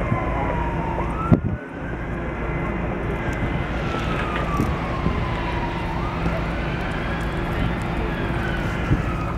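Emergency-vehicle siren wailing, its pitch sliding slowly down and sweeping quickly back up about every five seconds, over a steady low rumble.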